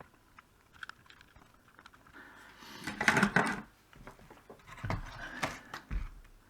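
Small clicks and scrapes of tools working on a circuit board as solder is cleared from the component holes, with a louder noisy burst about three seconds in and another near five and a half seconds.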